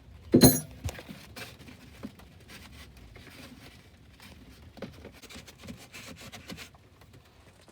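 A sharp metallic clank about half a second in, then scattered small clicks, scrapes and rattles of hand work with a spanner on the choke cable's fitting.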